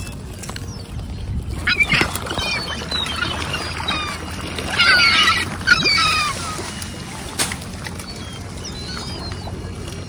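Gulls and mallard ducks calling, in two bursts of squawking calls, about two seconds in and again around five to six seconds in. A single sharp click comes near seven and a half seconds.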